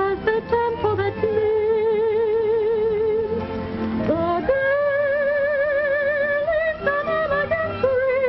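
A woman singing long held notes with a wide vibrato over musical accompaniment, sliding up to a higher held note about four seconds in.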